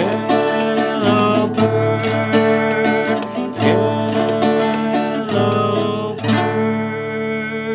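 Acoustic guitar music, with chords played in a steady flow that change every second or so.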